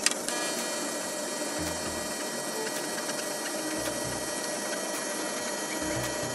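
TIG welding arc on stainless steel plate: a steady electric hiss with a faint hum, as short stitch welds are laid along the joint. A sharp click right at the start.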